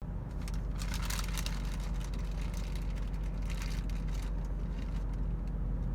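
Car engine running with a steady low hum, heard from inside the cabin, with a few brief higher hissing or rustling noises.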